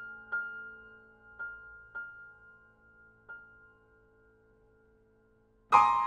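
Grand piano played solo: a single high note struck four times at uneven intervals over a pedalled, ringing chord that slowly fades, then a loud full chord struck near the end.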